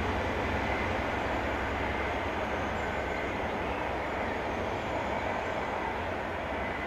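Class 43 HST diesel power cars running as the test train draws away, with steady wheel-on-rail noise; the sound fades slowly as the train recedes.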